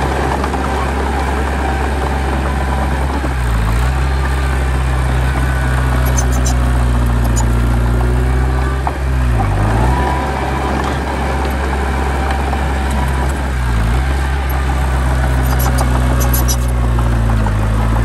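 Heavy diesel engine of earth-moving machinery running steadily. Its pitch dips briefly and recovers about every four to five seconds, as it takes load. A few faint high ticks come in twice.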